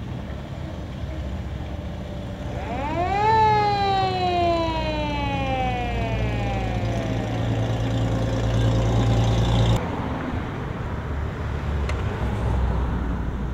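A vintage fire truck's mechanical siren winds up quickly about three seconds in, then slowly winds down over the next four seconds, over the truck's steady low engine hum. Near the end the sound changes abruptly to another vehicle passing.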